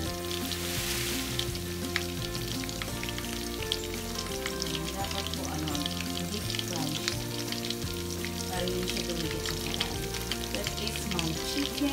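Chicken breasts frying in hot oil, a steady sizzle full of small crackles and pops.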